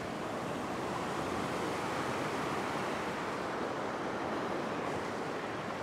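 Ocean surf washing around and over a rock shelf: a steady rushing wash of broken waves.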